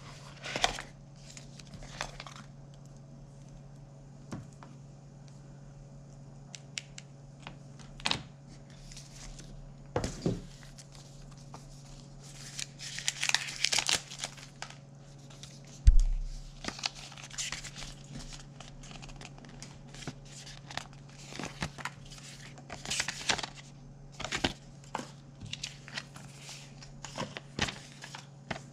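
Packaging being handled during an Apple TV 4K unboxing: cardboard inserts sliding and plastic wrapping crinkling in short, scattered rustles, with one loud thump about halfway through. A steady low hum sits underneath.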